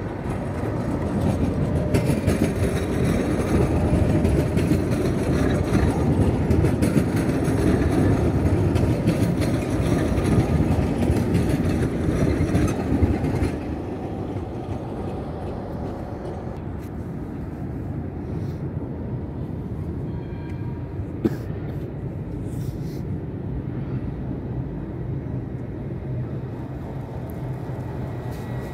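A tram runs past close by on street rails, a dense rumble of wheels on track and running gear. About thirteen seconds in it drops away sharply, leaving a steady low background rumble broken once by a single sharp click.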